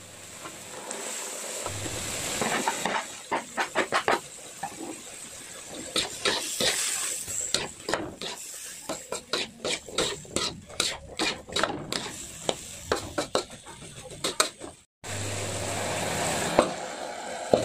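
A spatula stirs and scrapes diced carrots, potatoes and green beans in a wok over sizzling oil, in quick runs of scrapes and knocks against the metal. After a short break the vegetables sizzle and hiss more steadily, with a single knock near the end.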